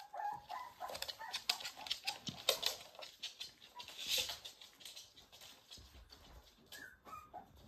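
Pembroke Welsh Corgi puppies giving short, high squeaks, with a run of light clicks of dog claws on the wooden floor and a brief rustle about four seconds in.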